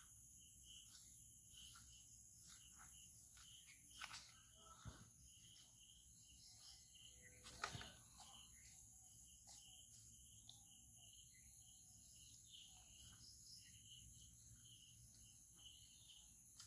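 Faint outdoor insect chorus: a steady high-pitched drone with a chirp repeating at a regular pace. A couple of short knocks cut in, the loudest about seven and a half seconds in.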